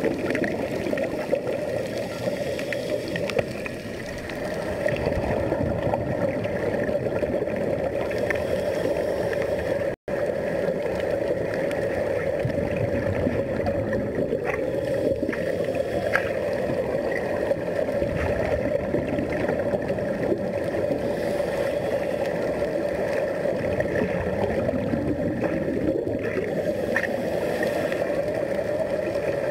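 Underwater recording of a steady rush of bubbling air escaping from helmet-diving helmets, with a steady droning hum carried through the water, all muffled. The sound cuts out briefly about a third of the way through.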